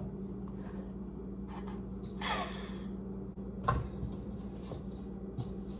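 Small kitchen handling noises over a steady low hum: a scrape about two seconds in, a knock near four seconds, and light clicks.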